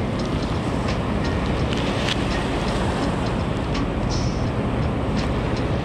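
Steady wind rumbling on the microphone over breaking surf, with light crinkles and ticks from plastic lure packets being handled.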